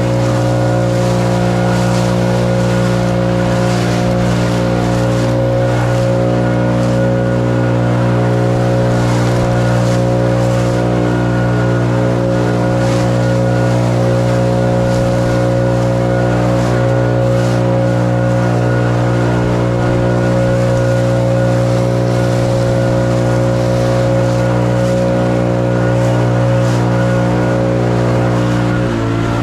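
Small gasoline engine of lawn equipment running steadily at an even speed, with a brief dip in pitch near the end.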